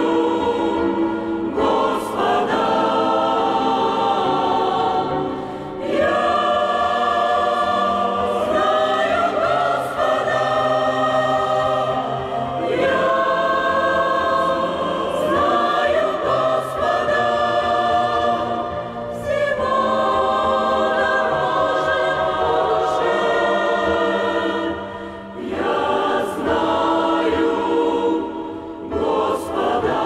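Church choir singing a hymn in sustained, many-voiced chords, with brief dips between phrases.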